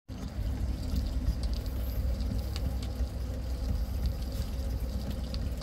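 Stylus tracking the lead-in groove of a spinning 45 rpm vinyl single: steady surface noise over a low turntable rumble and hum, with a few faint clicks.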